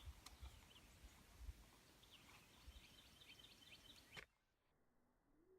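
Faint bird chirps, with a quick run of short repeated notes near the middle, over a low, uneven rumble. About four seconds in the sound cuts off abruptly to near silence.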